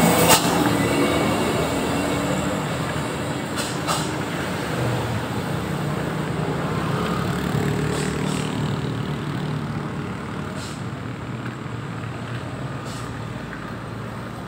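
A heavy truck's engine running close by, slowly fading away.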